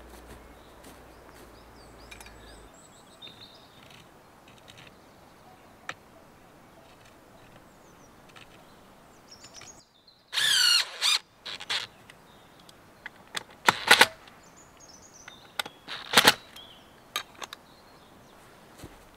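Faint bird chirps over outdoor background, then about halfway a short loud squeal followed by a series of sharp knocks and clanks, the loudest coming in the last few seconds.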